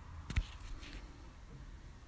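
Handling noise: one sharp click about a third of a second in, then faint rustling.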